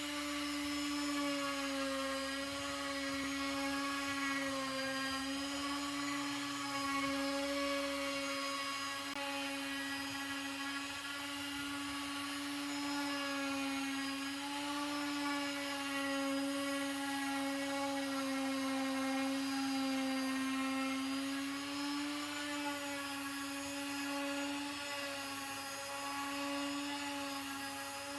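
Electric power tool motor running continuously with a steady high whine, its pitch wavering slightly as the load on it changes.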